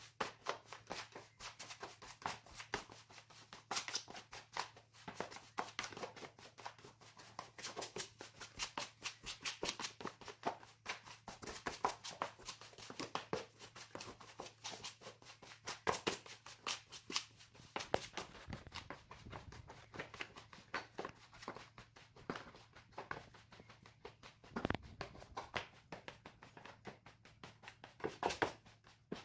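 A plastic dough scraper and hands scrape, scoop and press crumbly low-hydration biga dough against the walls and floor of a plastic dough box. The sound is sped up as a timelapse, so it comes as a dense, fast run of scrapes and clicks.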